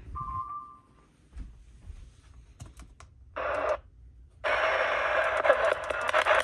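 A short electronic beep of two close tones, a few faint clicks, then a brief burst of radio static and, after a short gap, loud steady static.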